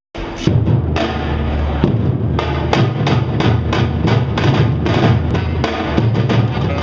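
Samba-reggae drum ensemble playing: surdo bass drums struck with mallets give a deep booming pulse, with repinique and timbau strokes cutting in on top in a steady, rapid rhythm.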